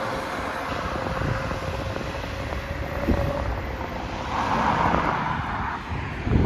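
Diesel bus pulling away and moving off, its engine running with a steady turbo whistle that fades out about halfway through, then a brief swell of engine and road noise and a knock near the end.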